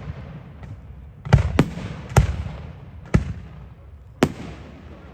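Fireworks going off: five sharp bangs at uneven spacing starting about a second in, the first two close together, each trailing off in a rolling echo.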